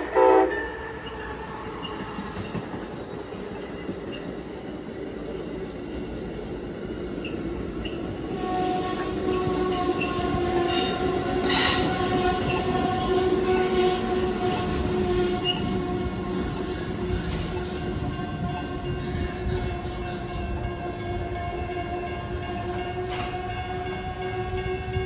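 Amtrak passenger train arriving and slowing at a station: the locomotive's horn cuts off right at the start. Then the passenger cars roll past, and from about a third of the way in their wheels and brakes squeal in steady high tones as the train brakes to a stop.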